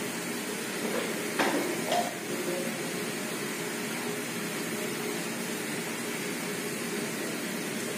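Metal dumbbells set down on the gym floor: two short knocks about one and a half and two seconds in, the second with a brief metallic ring, over a steady hiss of room noise.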